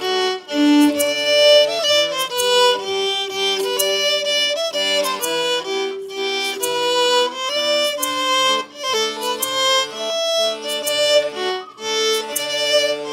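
Folk band playing an instrumental tune: fiddle and accordion carry the melody together over piano.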